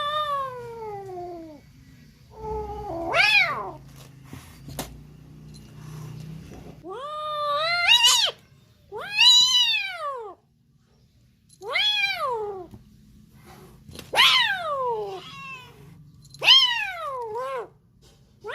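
A frightened kitten meowing over and over, about seven loud, high-pitched cries spaced a second or two apart, each rising and then falling in pitch.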